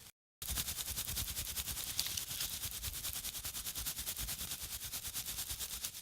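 A rapid, even rattle of sharp clicks, about a dozen a second, that starts abruptly after a brief silence and keeps a steady pace.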